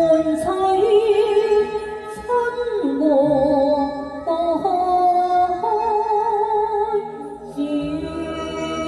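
A woman singing a Cantonese opera melody with wide vibrato over instrumental accompaniment, marked by a few sharp percussion strikes.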